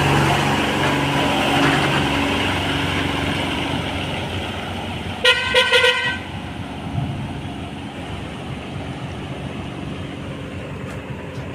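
A vehicle horn sounding a quick series of short toots about five seconds in, over vehicle engine noise that fades away during the first seconds.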